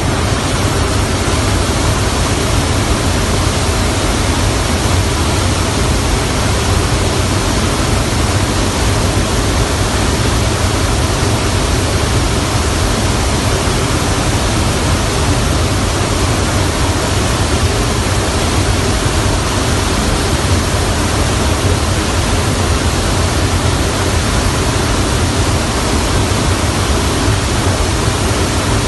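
Steady, loud roar of a jet aircraft in flight, heard from inside the cabin: engine drone and rushing airflow, heaviest at the low end, unchanging throughout.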